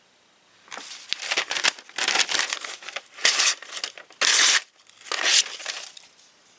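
Paper or plastic packaging being crinkled and crumpled in a run of short bursts, starting about a second in and stopping near the end.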